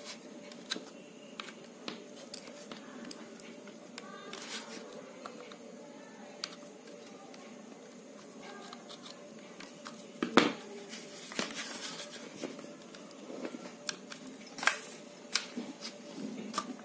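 Small screwdriver prying at the plastic locking tabs of a hot air gun's nozzle cover: scattered light plastic clicks and scrapes, with several sharper clicks in the second half, over a faint steady hum.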